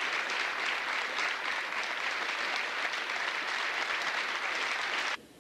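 Audience applauding: a dense, steady sound of many hands clapping that stops abruptly near the end.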